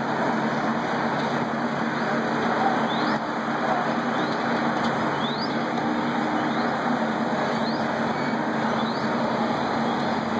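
A parked fire engine's diesel engine running steadily with a constant hum, and a few faint, short high chirps from birds.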